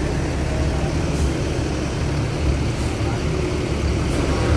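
Intercity coach bus's diesel engine idling with a steady low rumble while the bus stands loading passengers.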